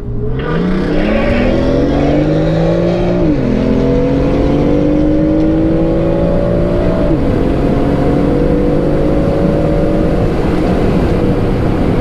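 Sports car engine at full throttle, pulling hard through two upshifts: the pitch climbs, drops at a gear change about three seconds in, climbs again, and drops at a second shift about seven seconds in, with road and wind noise underneath.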